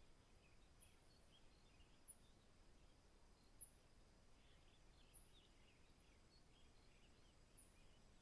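Faint dawn ambience in the East African savanna: a bird repeats a short, very high chirp every second or two, with scattered softer bird chirps and a steady faint hiss of distant background.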